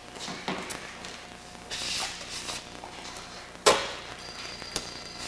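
Hands working tape along the edge of a wing panel: a short tearing sound about two seconds in, like tape pulled from a roll, then one sharp knock a little over halfway through, amid small handling clicks.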